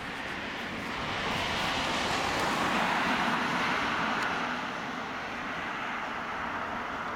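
A car passing on the road, its tyre and road noise rising to a peak about three seconds in and then fading.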